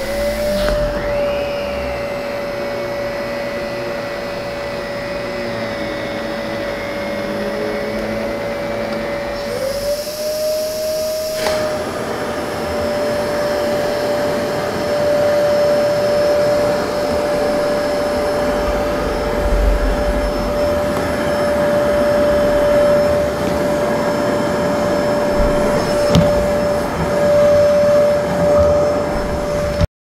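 Zero G F3D canister vacuum with its powerhead, switching on and spinning up to a steady high whine. About ten seconds in it spins up again and runs on steadily.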